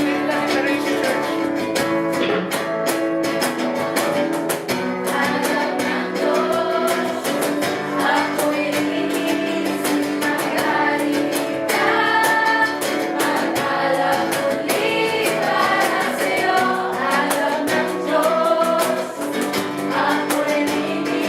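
Worship song with strummed guitar and a steady beat, sung by a group of voices.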